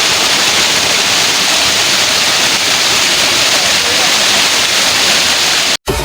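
Waterfall's falling water making a loud, steady rush that cuts off suddenly near the end.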